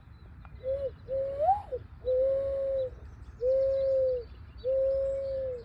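Mourning dove cooing: its song of a short note, then a note that rises and falls, then three long, level coos.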